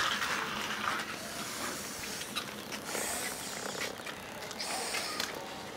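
Small electric motor driving the propeller of a homemade toy plane, running as a steady, hiss-like noise.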